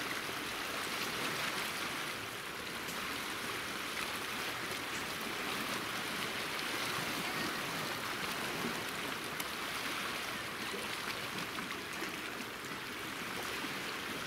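Small sea waves washing and lapping over a rocky shoreline, a steady rush of water.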